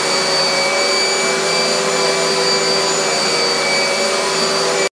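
12-amp upright bagless vacuum cleaner running at full speed, a steady motor whine with several high tones over a rushing of air. It is powered from a 12-volt battery through a 2000-watt power inverter.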